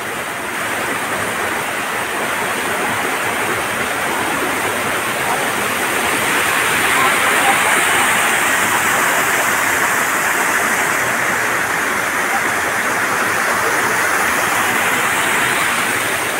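Water rushing over rocks in a small stream cascade into a pool: a steady, loud splashing rush, growing louder around the middle and easing a little toward the end.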